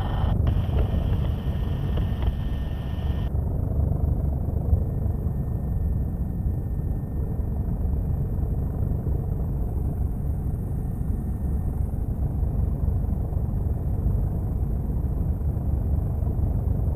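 Helicopter in flight: a steady low drone of rotor and engine noise inside the aircraft. For about the first three seconds a band of hiss, typical of an open intercom mic, sits over it and then cuts off suddenly.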